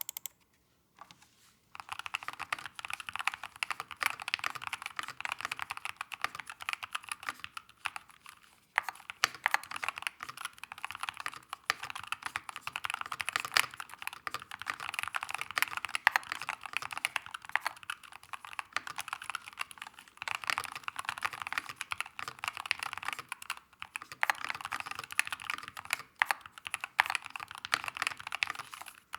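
Fast, continuous typing on a Keychron K4 HE Special Edition keyboard with its stock Gateron double-rail magnetic switches: a dense run of keystroke clicks, with a short pause about nine seconds in.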